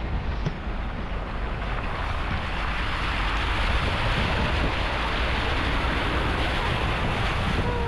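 A steady rush of flowing creek water that grows brighter about two seconds in, with wind rumbling on the microphone.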